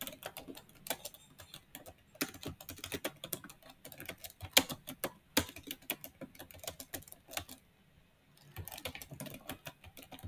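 Typing on a computer keyboard: a quick, uneven run of key clicks, with a short pause about eight seconds in.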